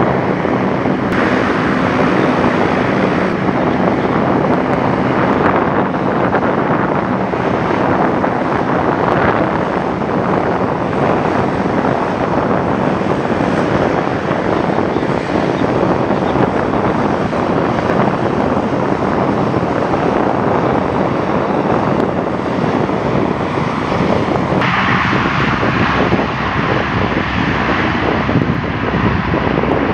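Lockheed C-130H Hercules's four Allison T56 turboprop engines and propellers running loud and steady as the aircraft rolls along the runway, with a steady low drone under a dense roar. About 25 seconds in, the sound turns abruptly brighter and hissier.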